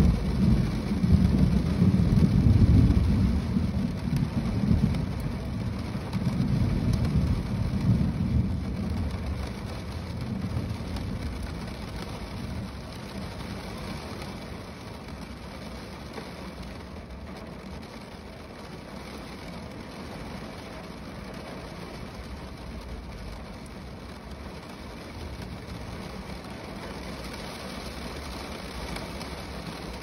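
Steady rain falling on a car roof, an even hiss throughout. A deep rumble of thunder rolls under it at first and fades away over about the first ten seconds.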